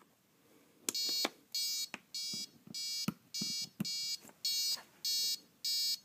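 Piezo buzzer on a Super Bee gas RC kill switch giving a steady series of short electronic beeps, about two a second, starting about a second in. The beeps go with the amber LED flashes that count out the low-voltage cutoff setting at power-up.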